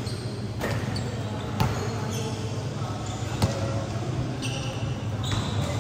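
A ball bouncing on a hard court, a few separate thuds, with short high squeaks and voices in the background.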